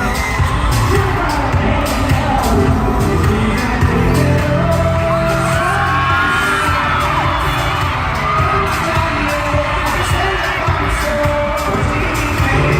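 K-pop song performed live over a loud concert PA, with a heavy bass beat and singing, and the crowd screaming and singing along.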